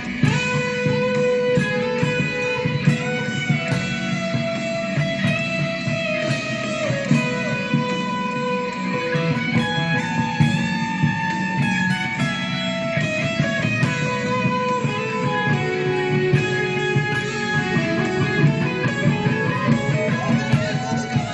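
Music led by a guitar playing a melody, over a steady bass.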